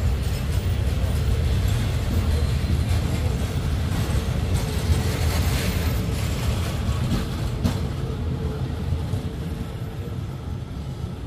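Passenger train coaches rolling past on the rails: a steady low rumble of wheels with a few clacks over the rail joints, fading as the last coach pulls away near the end.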